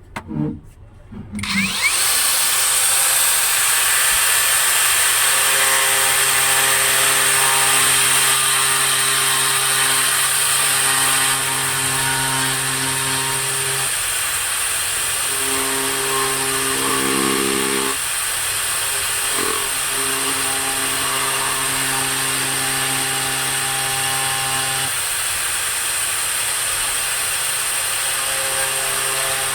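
4-inch angle grinder fitted with an oscillating-tool adapter, switched on about two seconds in and running steadily with a high whine while its oscillating cutter blade cuts into wood. The lower tone of the motor shifts a few times as the load on the blade changes.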